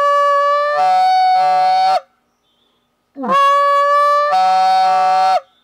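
Goose call blown in two long notes, each a steady high whine that partway through breaks into a rougher, buzzing tone before cutting off. This is the start of the train note, made by sliding the tongue up toward the roof of the mouth while keeping the same air pressure.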